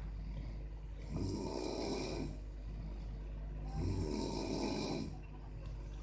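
Two people snoring as a duet: one long snore about a second in and another just before four seconds, over a steady low hum.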